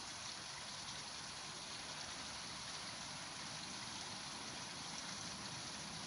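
Steady, even outdoor background hiss with no distinct events.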